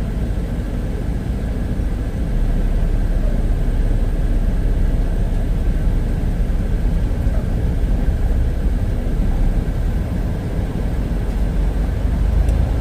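Semi truck's diesel engine running as the truck drives, a steady low rumble that gets slightly louder about two seconds in.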